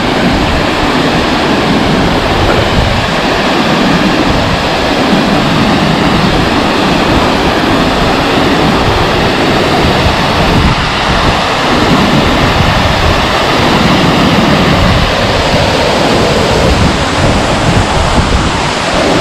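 A waterfall crashing into its pool close by, a loud steady rush of water, with some wind buffeting the microphone.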